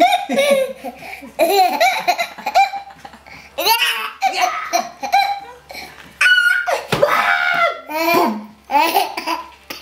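A young child laughing and giggling in repeated short, high-pitched bursts, cracking himself up, with a held squeal about six seconds in.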